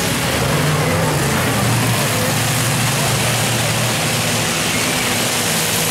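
Demolition derby cars' engines running, a steady low hum under a dense wash of mechanical noise.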